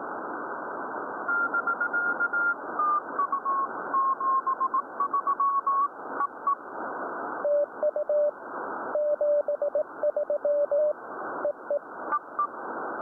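Morse code (CW) keyed as on-off beeps from a ham radio receiver on a satellite contact, over steady receiver hiss. For the first half one signal sends at a higher pitch that shifts lower in small steps. Then a second, lower and steady-pitched signal sends, with a short high-pitched burst near the end.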